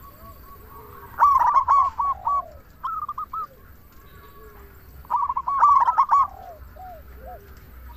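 Zebra dove (perkutut) singing: three phrases of rapid, staccato cooing notes, the longest about five seconds in.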